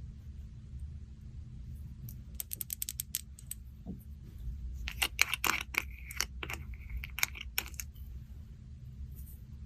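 Slime being mixed by hand, giving sharp clicks and pops: a quick run of light clicks about two seconds in, then a louder, denser cluster from about five to eight seconds in, over a low steady hum.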